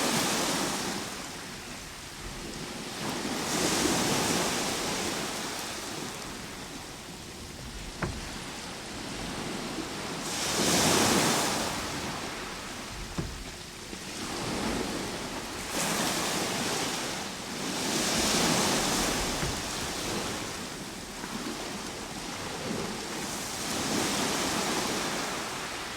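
Ocean waves breaking on a shore, a steady hiss of surf that swells with each wave every few seconds and ebbs between, the biggest about eleven seconds in.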